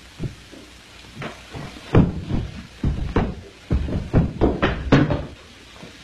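Ball bouncing down a staircase: a run of thumps, sparse at first, then about two to three a second. The loudest comes about two seconds in, and the thumps stop about five seconds in.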